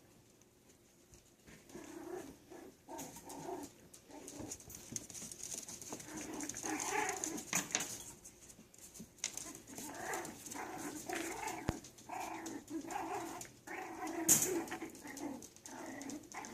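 Yorkshire terrier puppies playing and calling in a run of short, repeated yips and whines. There is one sharp click late on.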